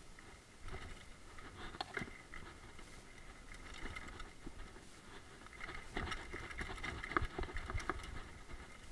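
Mountain bike rolling down a bumpy dirt trail: an irregular clatter of knocks and rattles over a low rumble of tyres on dirt, busier in the second half, with the sharpest knock about seven seconds in.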